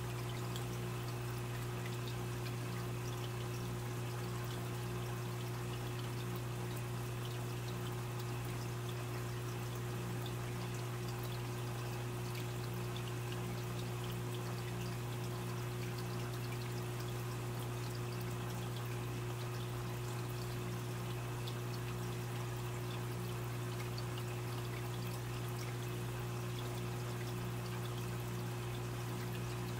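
Aquarium water trickling and splashing steadily, as from a running filter outflow or bubbler, over a constant low hum.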